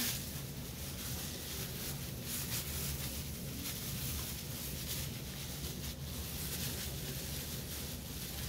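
Soft, faint rustling of clear plastic gloves handling a plastic hair-frosting cap, over a steady low hum.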